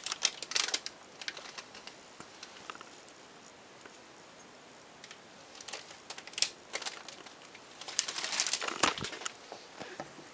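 Camera handling noise: scratchy rustling and clicks of the microphone rubbing and knocking against cloth, in bursts near the start, around six seconds in, and again near nine seconds in.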